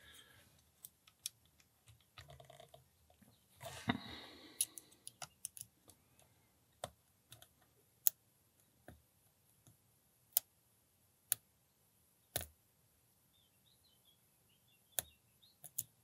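Lock picks working the pins of a Brinks 30mm brass padlock: sparse, irregular sharp metal clicks and ticks, a second or more apart, with a brief stretch of soft scraping around two to four seconds in.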